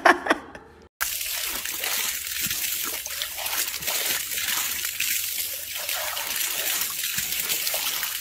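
From about a second in, a hose's water jet hisses and splashes steadily against a lioness's mouth as she bites at the stream and drinks from it.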